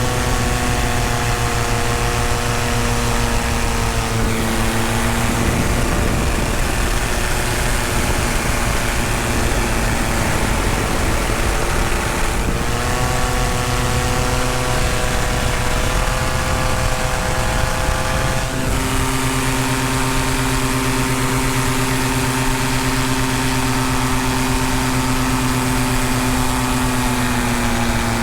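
Tandem paramotor engine and propeller running steadily in flight, its pitch shifting a few times as the throttle changes, over a constant rushing hiss.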